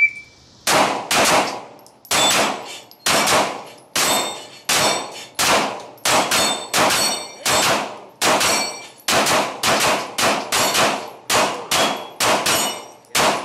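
A shot timer beeps once, then two pistols fire steadily, about two shots a second. Many of the hits ring off a rack of steel plates.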